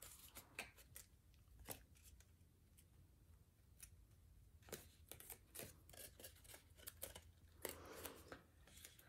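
Faint crackling and rustling of paper being folded and creased by hand, in scattered short clicks with small clusters about halfway through and near the end.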